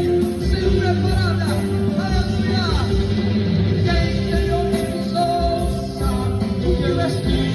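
A band playing music with a singing voice over a steady low beat; the pitch slides up and down about one to three seconds in.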